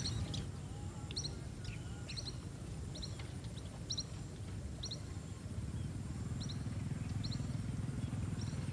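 A bird calling over and over with short, high double chirps, roughly once a second, over a steady low rumble.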